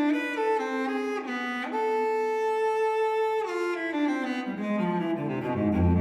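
Background music of bowed strings: a slow melody with one long held note in the middle, moving down into low cello and bass notes near the end.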